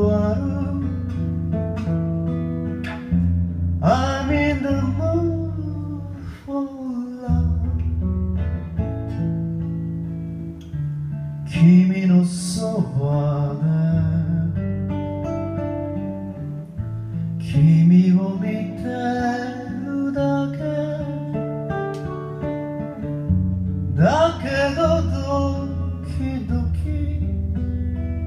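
Acoustic guitar played live with a man singing to it. The guitar carries the music throughout, and sung phrases come in now and then over it.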